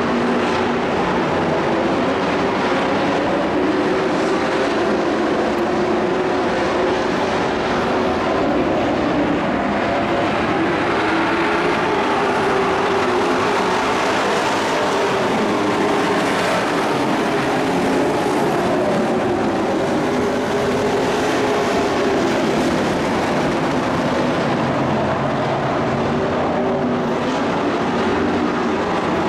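Engines of a pack of dirt-track race pickup trucks running hard around the oval. It is a steady, loud drone of several overlapping engine notes that waver up and down in pitch as the trucks pass.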